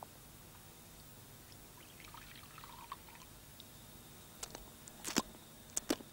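Milk poured from a small jug into a cat's dish, a brief soft trickle, followed by several short sharp clicks as the cat laps and eats from the dish.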